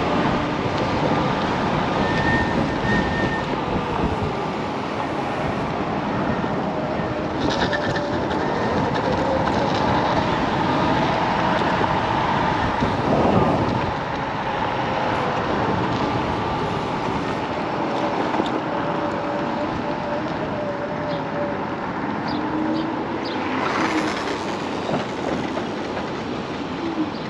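Kaabo Wolf King GT dual-motor electric scooter riding at speed: steady wind and road noise with the hub motors' whine rising and falling as the speed changes. A brief falling sweep about halfway through.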